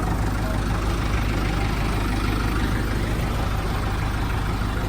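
ATV engine idling steadily, a low even hum that holds without revving.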